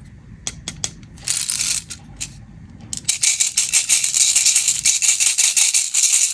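Candy in plastic packaging being handled, a dense rapid rattling and crinkling. A short burst comes a little over a second in, then it runs louder and continuous from about three seconds in. Children's song music plays faintly underneath.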